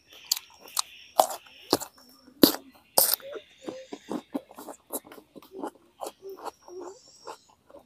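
Close-up chewing and lip-smacking of chewy braised pig intestines: a steady run of wet smacks and clicks, about three a second, with a couple of louder smacks a few seconds in.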